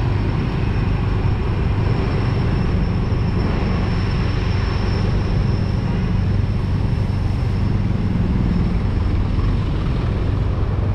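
Steady drone of a motorbike engine with road and wind noise while riding at an even speed.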